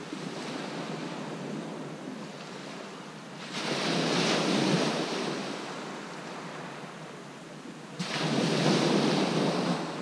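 Waves breaking and washing up a shingle beach, in two louder surges: one about three and a half seconds in, the other starting suddenly at eight seconds.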